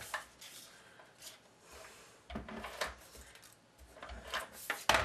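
Small handling clicks and paper rustles from cardstock pieces, then a Scotch ATG adhesive tape gun run along a small paper piece, clattering, with a sharp click near the end.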